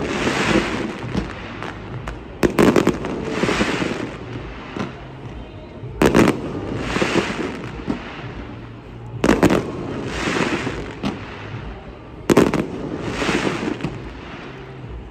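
Aerial fireworks shells bursting, a sharp bang about every three seconds. Each bang is followed by a second or so of crackle and echo.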